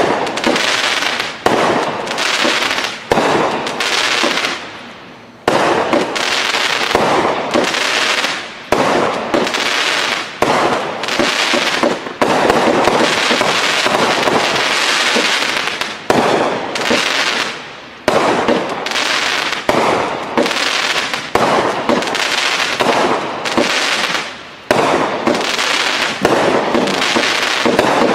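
A 500 g consumer fireworks cake (Sunwing SW-C2152 'Lift') firing shot after shot, about one a second, each a sharp report that fades away before the next.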